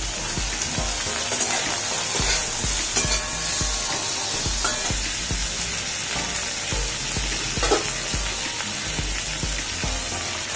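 Bell peppers and cabbage sizzling steadily in oil in a kadai, with a few light knocks of utensils against the pan.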